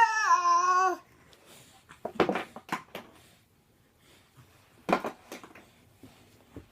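A baby's high, drawn-out vocal squeal whose pitch bends and drops, ending about a second in, followed by a few sharp knocks of objects being handled.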